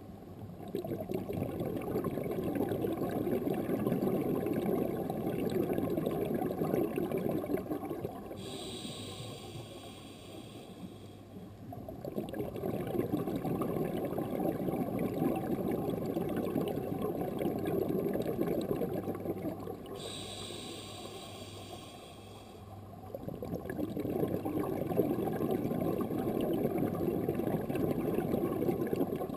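Scuba diver breathing through a regulator: three long bubbling exhalations, each several seconds, with a shorter hiss of the regulator on the in-breath between them, twice.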